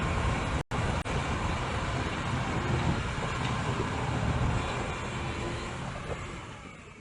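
160 hp crawler bulldozer's diesel engine running, a dense steady mechanical noise with a brief break just under a second in, fading away toward the end.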